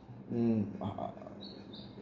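A man's short voiced hesitation sound between phrases, followed by faint short high chirps, two of them close together in the second half.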